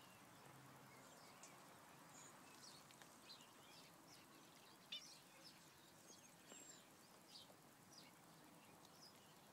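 Near silence: faint outdoor ambience with many short, scattered high chirps of small birds in the background.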